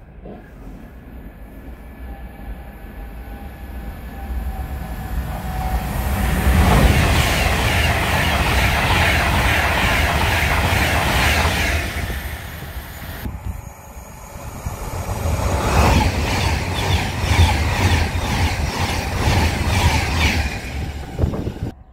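Avanti West Coast Class 390 Pendolino electric train passing through at speed: the rumble and rush of wheels on rails builds over a few seconds and stays loud. In the second half the carriages go by with a rhythmic clatter of wheels over the rails, and the sound cuts off suddenly near the end.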